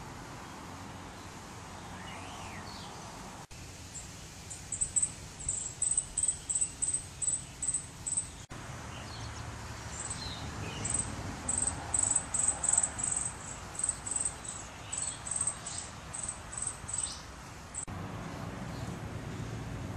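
Outdoor yard ambience with a run of short, very high-pitched chirps repeated about three times a second, starting a few seconds in, pausing briefly midway and stopping shortly before the end.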